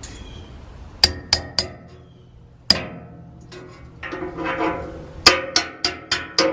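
Hammer tapping a steel punch to bend over the legs of a cotter pin in a castle nut, about nine sharp metal-on-metal taps in three groups, each leaving a short ring from the steel deck.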